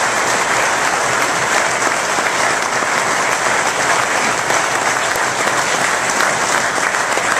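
Audience applauding, a dense, steady clapping that holds an even level.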